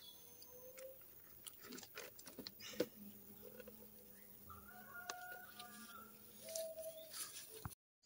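Faint chickens clucking in the background, with a few light clicks and rustles as fibre string is tied around a bee box.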